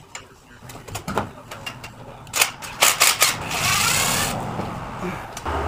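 Scattered metallic clicks and clinks of bolts and tools being handled at the truck engine's water pump, with a brief burst of noisy whirring about three and a half seconds in.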